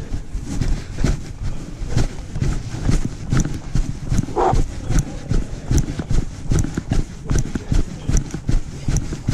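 A runner's footfalls on a dirt forest trail at a steady running pace, about three strides a second. A brief pitched sound, like a short voice, comes about four and a half seconds in.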